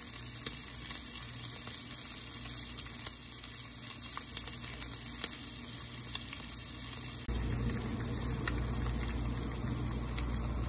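Home-cured wild hog jowl bacon sizzling in a frying pan, a steady hiss with small pops of spitting fat. About seven seconds in the sound changes suddenly to a fuller, lower frying of eggs in the pan.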